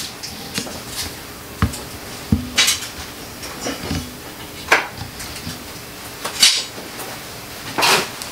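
Irregular clanks, knocks and rattles of hard tools and objects being picked up and moved about on a workshop bench, about ten separate hits with a couple of short rattling scrapes near the end.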